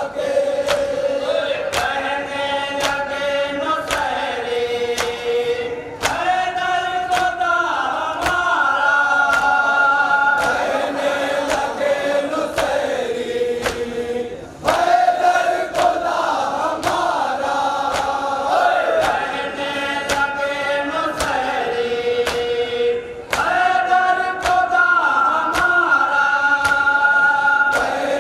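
Men reciting a nauha, a Muharram lament, in unison through a microphone. The same long-held melodic phrase repeats about every eight seconds, and sharp slaps come at an even pace under it, which fit matam, the mourners beating their chests in time.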